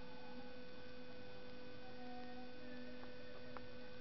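A steady electrical hum: one mid-pitched tone with fainter overtones, and two faint clicks about three seconds in.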